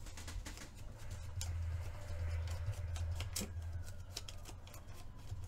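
Paper being handled and torn by hand, short crackly clicks and rustles, over a steady low rumble.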